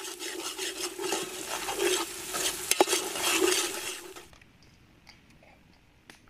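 A ladle stirring and scraping chicken masala as it sizzles and fries in an aluminium pot, with a sharp knock near the middle. The sound cuts off abruptly about four seconds in and is followed by a much quieter stretch.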